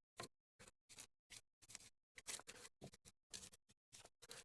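Faint brush scrubbing a car wheel coated in wheel cleaner: short rubbing strokes, about three a second, the light agitation that loosens the dirt.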